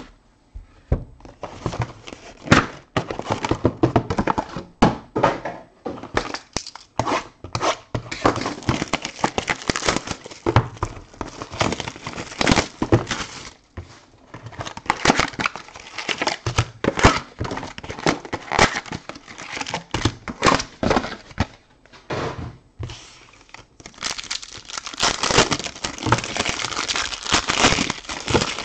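Plastic wrapping and sealed trading-card packs from a Topps Champions League Showcase box crinkling and tearing as they are unwrapped and handled, mixed with many short knocks of cardboard boxes and packs being set down. The crinkling is thickest near the end, as a pack is being opened.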